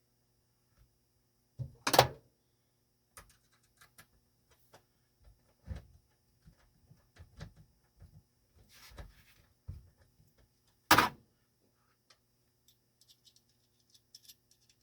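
Scattered knocks and clicks of tools and small parts being handled, with two much louder knocks, one about two seconds in and another about nine seconds later.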